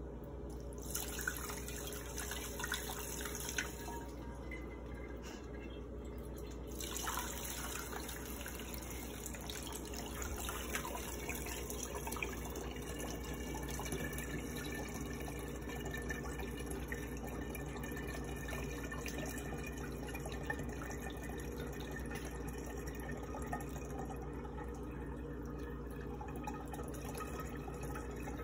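Cooled stout wort poured through a mesh strainer and funnel into a glass gallon carboy: a steady trickle and splash of liquid as the jug fills before the yeast is pitched.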